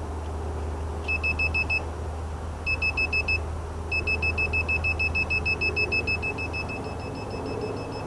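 Estate Swing gate opener control board beeping rapidly in a high tone, about eight beeps a second. It gives two short bursts, then a longer run from about four seconds in that fades toward the end. The beeping signals that the sliding limit switch has reached the magnet on the screw drive and is in the correct closed-limit position.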